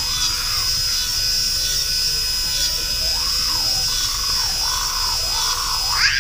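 Small electric patterning machine running with a steady high whine as it cuts a decorative pattern into a silver bangle. Its pitch rises and falls in short arcs several times in the second half, with a bigger rise and fall near the end.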